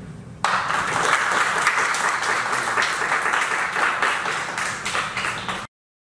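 Small audience clapping. It starts suddenly about half a second in and cuts off abruptly near the end.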